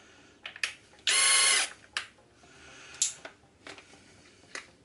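SKIL 20V brushless cordless combi drill's motor spinning up briefly, a steady whine lasting about half a second, a second in. Short clicks from handling the drill come before and after it.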